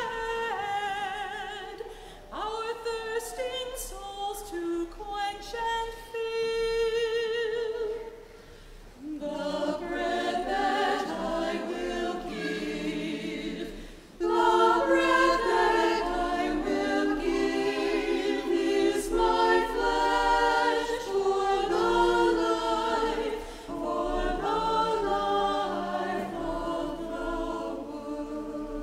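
A choir singing a hymn. The singing is thinner at first and grows fuller and louder from about nine seconds in, with a brief pause between phrases near the middle.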